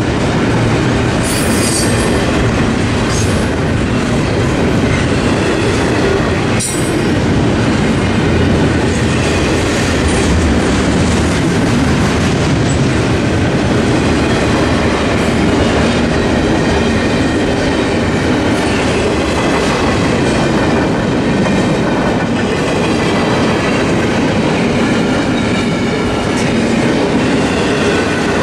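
Double-stack intermodal freight cars rolling past at a grade crossing: a loud, steady rumble and clatter of steel wheels on rail, with faint wheel squeal. There are a few sharp clanks in the first several seconds.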